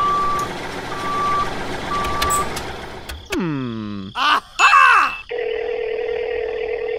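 Telephone sound effects: three short evenly spaced beeps, a falling cartoon swoop, a brief warbling cartoon voice, then a steady dial tone held for the last couple of seconds.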